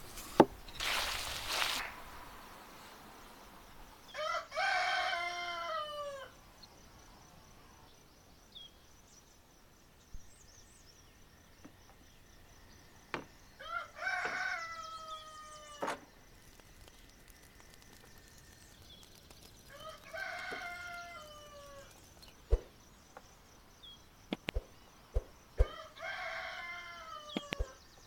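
A rooster crowing four times, each crow about two seconds long and ending in a falling note. A sharp knock and a brief burst of noise come right at the start, and scattered sharp knocks follow in the second half.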